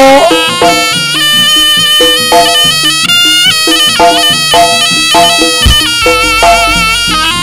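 Javanese jaranan gamelan music: a slompret (Javanese shawm) plays a reedy, stepping melody, its notes wavering near the end, over a steady beat of drum and gongs.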